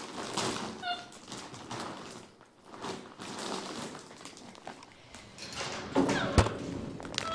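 Scattered rustling and clicking of monkey-biscuit containers being handled, with a short high squeak about a second in and a single sharp thump about six seconds in.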